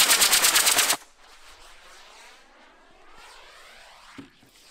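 Model rocket motor (D-class) hissing under thrust, pulsing rapidly as the spinning helicopter-style craft whirls it round, then burning out and cutting off about a second in. Near the end a dull thud as the craft lands on the grass.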